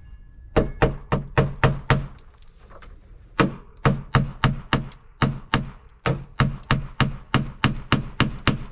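Quick, regular hammer blows on wood, about three or four a second, in three runs with short breaks about two seconds in and again near six seconds.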